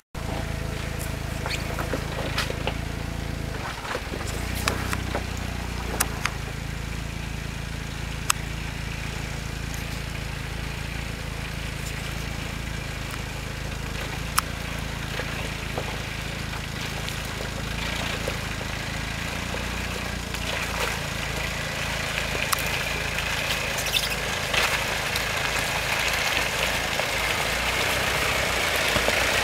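Off-road Jeep's engine running steadily at low revs, with scattered sharp clicks and knocks over it. A hiss grows louder through the second half.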